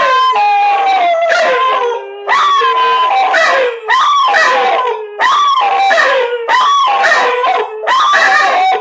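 A dog left alone at home howling at the window. It gives a string of long howls, each sliding down in pitch, with short breaks between them.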